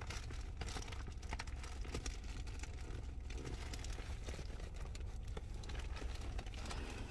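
Rustling and light clicks of things being handled inside a car, over the steady low hum of the car's idling engine.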